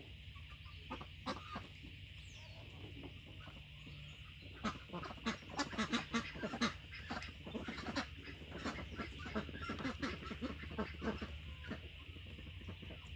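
Hens clucking, a dense run of short clucks from about four seconds in until near the end, over a steady high hiss.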